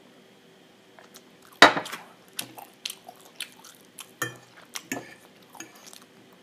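Cutlery clinking and scraping against a dish while eating: one sharp clack about one and a half seconds in, then a run of lighter clicks and knocks.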